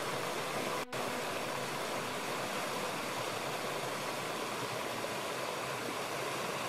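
Steady rush of fast-flowing water, a river or waterfall, broken by a brief dropout about a second in.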